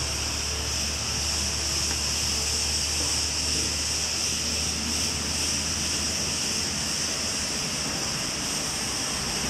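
Steady outdoor background noise: an even high-pitched hiss or buzz over a low steady hum, with no distinct events.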